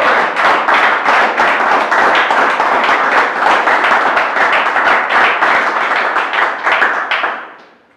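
Audience applauding, a dense burst of many hands clapping that fades out over the last second, with a brief cheer near the start.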